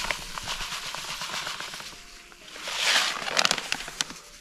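Small 2 mm fishing pellets poured from a plastic bag into a plastic pellet sieve, a dense pattering rattle that thins out after about two seconds. About three seconds in the plastic bag rustles briefly, followed by a few light clicks.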